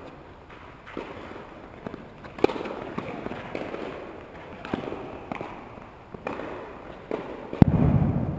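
Tennis rally in an echoing indoor hall: sharp pops of racquet strikes and ball bounces, one every half second to a second. Near the end comes a loud thump followed by a short low rumble.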